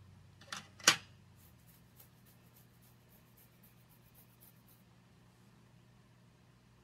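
Two sharp clicks about a third of a second apart, the second the louder, then a run of faint light ticks for a few seconds: small makeup items being handled and set down.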